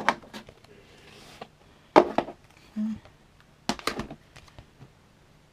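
Plastic Blu-ray case being handled and opened: three sharp clicks and scrapes, about two seconds apart, with light rustling between.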